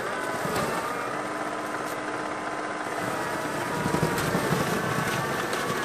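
Steady high-pitched whine of the electric motors on a 3D-printed snow blower mounted on a tracked RC snowcat, running while it throws a stream of snow. A noisier rush joins in about four seconds in.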